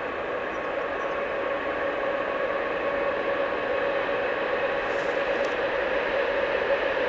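Approaching electric freight train hauled by two SNCF BB 7200 electric locomotives in multiple: a steady rumble with a held tone on top, growing gradually louder as the train draws nearer.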